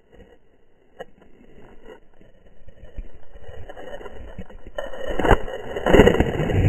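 Muffled rubbing and rushing noise on a hand-held camera's microphone, growing louder. About five seconds in, water splashing and churning over the camera takes over, loudest near the end.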